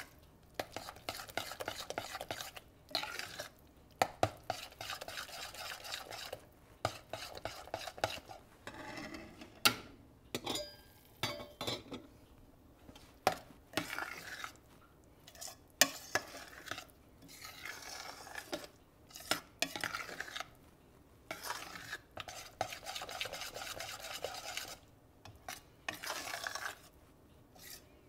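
Metal whisk stirring thick cheese grits in a stainless steel saucepan: bursts of scraping strokes, with sharp clicks of the wire against the pan's side.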